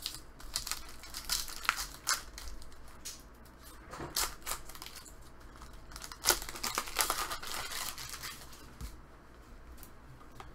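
A foil trading-card pack being crinkled and torn open in the hands, with the cards shuffled. It is an irregular run of short crackly rustles and clicks, loudest about six seconds in.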